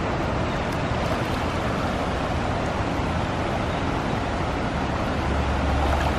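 Shallow river flowing over rocks, a steady rush of water around a person wading through it. A low wind rumble on the microphone comes in near the end.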